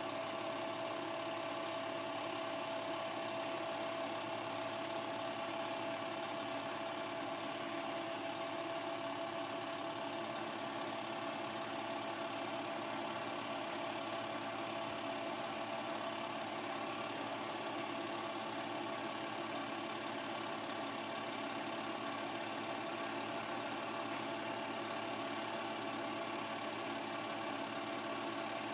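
Home-movie film projector running steadily: a constant mechanical chatter of the film transport with a steady whine.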